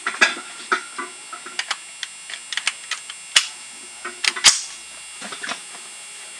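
A run of irregular sharp clicks and knocks, the two strongest about three and a half and four and a half seconds in, over a steady electrical hum.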